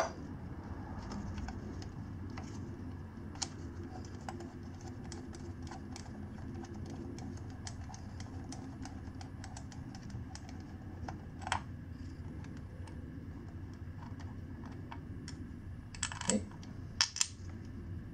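Small irregular metallic clicks from a wrench working the threaded valve adjustment cap out of a Kawasaki KLX140 cylinder head, with a few louder knocks near the end, over a steady low hum.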